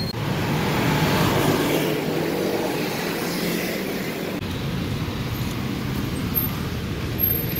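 Road traffic: cars driving past on a street, a steady wash of engine and tyre noise that swells briefly in the first couple of seconds.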